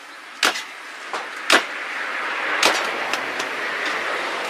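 A vehicle passing on the road, its noise swelling through the second half, with several sharp knocks about a second apart in the first three seconds.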